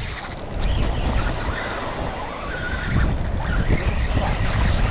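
Wind buffeting the microphone: a steady low rumble, with a faint high hiss from about one to three seconds in.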